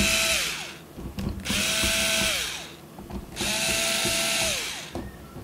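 Cordless electric screwdriver backing out small case screws in three short runs of about a second each. Each time the motor whines up to speed, holds, then winds down, with small clicks between the runs.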